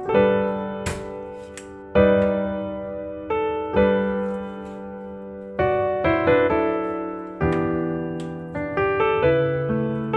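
Background piano music: slow chords, each struck and left to fade, a new chord every one to two seconds.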